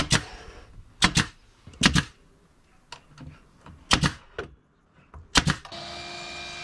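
Pneumatic brad nailer firing nails into wooden slats: five sharp double cracks, each shot followed at once by a second crack, spaced about one to two seconds apart. Near the end a mitre saw starts and runs steadily.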